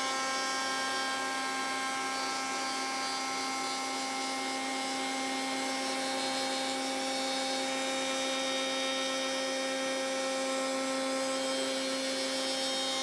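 Router in a router table running steadily at speed with a high, even whine as a bearing-guided flush-trim bit trims a plywood table-saw insert blank to the shape of the original insert taped on top.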